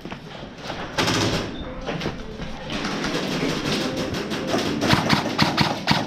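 Airsoft guns firing: rapid sharp clicks and short bursts, starting about a second in.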